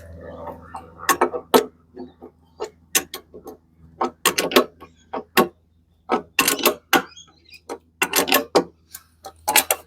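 Sharp knocks and clicks in irregular clusters, from hands and tools working a metal post stirrup onto a timber post, over a low steady hum.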